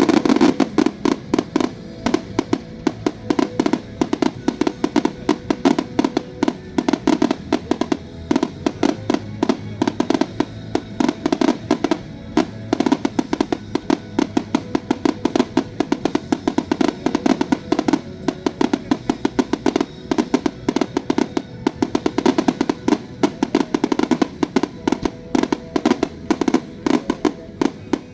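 A rapid, unbroken run of fireworks bursts in a finale barrage, several bangs a second, over music with held notes from loudspeakers.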